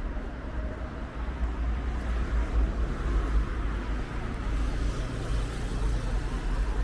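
City street ambience: steady road traffic noise with a heavy low rumble.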